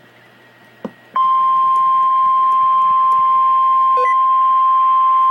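Emergency Alert System warning tone: after a brief click, a single loud, steady high tone switches on about a second in and holds without a break. This is the single-pitch 1050 Hz NOAA Weather Radio warning alarm, which signals that a warning message is about to be read.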